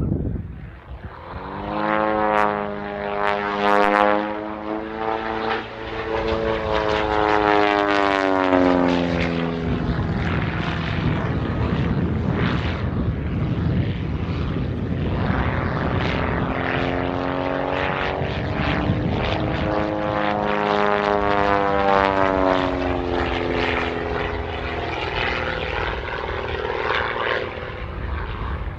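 Pitts Special aerobatic biplane's propeller engine running through a display. Its note falls over several seconds, then climbs and falls again.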